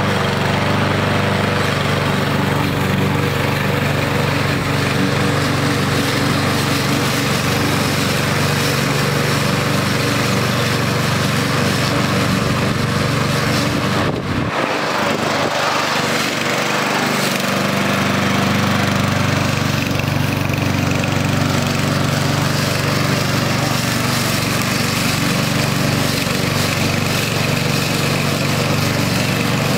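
Weibang petrol rotary lawnmower engine running steadily as it is pushed across the lawn cutting grass. The sound briefly dips about fourteen seconds in.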